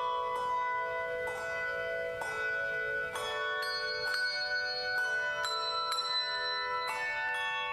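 Bell choir playing a slow anthem: pitched bells struck every half second to a second and left to ring, several notes sounding together in chords.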